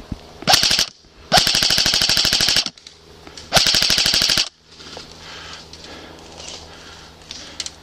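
Airsoft rifle firing on full auto in three loud bursts of rapid, evenly spaced shots: a short one, then one of about a second and a half, then one of about a second. After that there is only faint background.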